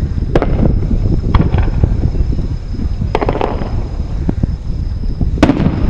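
Aerial firework shells bursting in the distance: four sharp bangs, each with an echoing tail, the third followed by brief crackling. Under them runs a constant low rumble of wind on the microphone.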